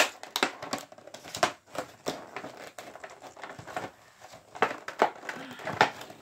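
Clear plastic toy packaging being bent and pried apart by hand: irregular crinkling with sharp crackles and snaps of the stiff plastic.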